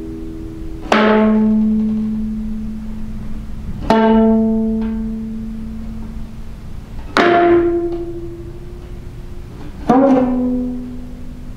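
Geomungo (Korean six-string fretted zither) played slowly with a bamboo plectrum: four separate strokes about three seconds apart, each a sharp, knocking attack followed by a long, low ringing note that dies away slowly.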